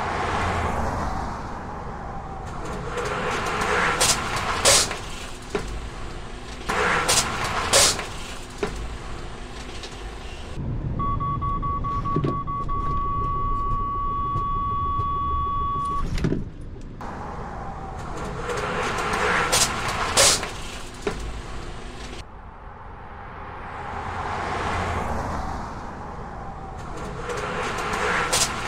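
Vehicles driving past with tyre and engine noise and a few sharp clicks; in the middle, inside the cab of a Mercedes-Benz truck, a driver-assistance warning sounds as one steady high beep held for about five seconds before the vehicle noise swells again.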